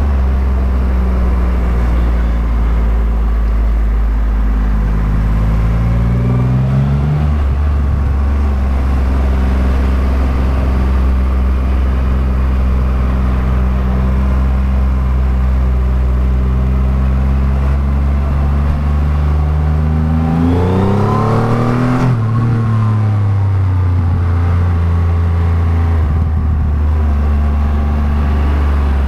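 Triumph Rocket 3 R's 2,458 cc three-cylinder engine heard from the rider's seat while underway: a low, steady engine note that climbs in pitch as the bike accelerates a few seconds in. About two-thirds through the note rises sharply and then falls away as the throttle comes off.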